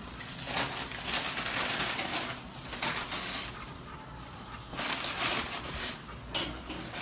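Argentine sausages sizzling on a charcoal kettle grill, a hiss that swells and fades in uneven surges.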